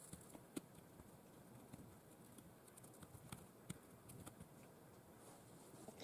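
Near silence: faint room tone with a few small, sharp clicks.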